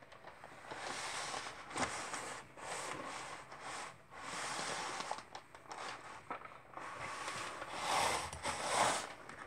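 Scraping and rustling as a wooden picture frame is slid and turned across a paper-covered worktable, in several uneven stretches that are loudest near the end.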